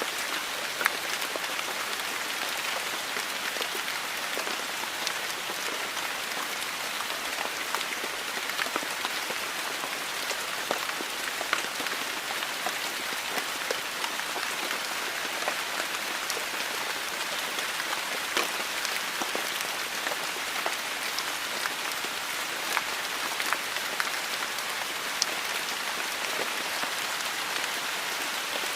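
Heavy rain falling steadily, the even hiss of the downpour dotted with the sharp taps of individual drops striking close by.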